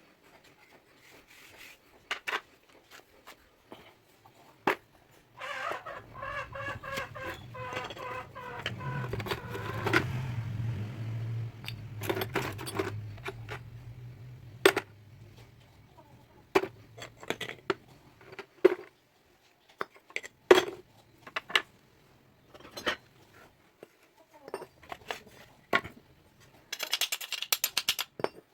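Irregular metallic clinks and knocks of tools on steel. A low motor hum runs underneath from about five seconds in to about eighteen seconds.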